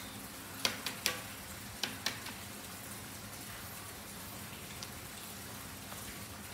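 Pencil and hands working on drawing paper laid over newspaper: a handful of sharp taps and rustles in the first two seconds, over a steady hiss.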